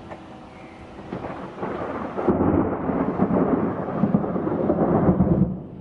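Loud rushing of fast river water in a rocky gorge. It swells about a second and a half in and cuts off abruptly near the end.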